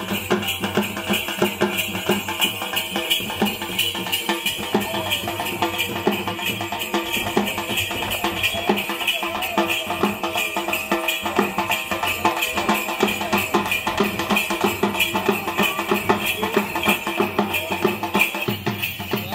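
Rhythmic drumming with the steady jingling of ankle bells (ghungroo) on dancers, keeping time for a folk dance.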